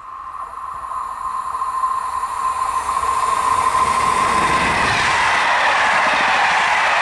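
Passenger train of Corail coaches approaching at speed and passing close by: a steady high-pitched tone grows louder as it nears, then about four to five seconds in the loud rush of wheels on rails and air from the passing coaches takes over.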